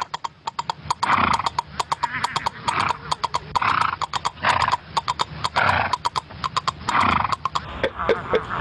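Galloping horse hoofbeats, a sound effect for the ride: a fast, steady clatter of hooves, several strikes a second, with a recurring breathy rush.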